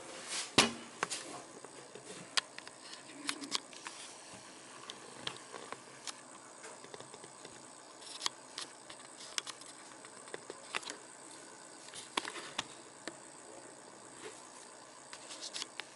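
Scattered light clicks and taps of handling as the camera on its rod is moved in close, a few sharper knocks in the first second, over a faint steady room hiss.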